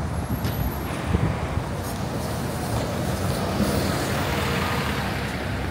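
City street traffic: engines and tyres of passing vehicles, a steady noise.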